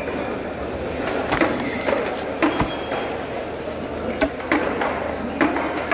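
Long knife cutting into a whole tuna on a wooden chopping board: irregular sharp knocks and clicks of the blade on the fish and board, one of them ringing briefly like metal, over steady background noise.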